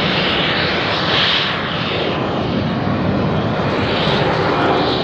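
Boeing 737-800 airliner's CFM56-7B turbofan engines at take-off thrust: a loud, steady jet roar as the plane climbs out. A higher rushing hiss swells about a second in and again near four seconds.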